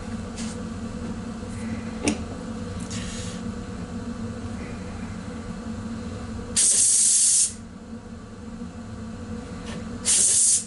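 Compressed air hissing from an air gun into a homemade experimental air engine: a few soft puffs, a light click about two seconds in, then a loud blast of about a second and a shorter one near the end, over a steady hum. The piston moves but the engine does not keep running.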